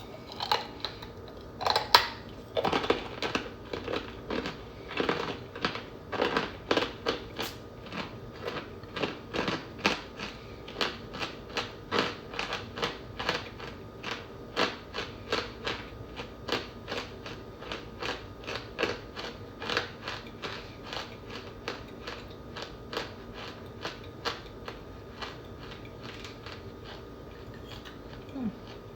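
Loose cornstarch being scooped up and crunched, a dry crunch repeated about twice a second, the loudest about two seconds in.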